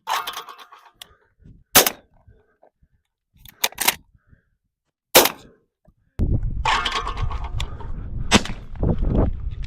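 Shotgun shots and sharp metallic clacks of the gun's action, as shells that will not cycle the semi-automatic action are fired and worked through. A loud, steady low rumble comes in about six seconds in, with more sharp reports over it.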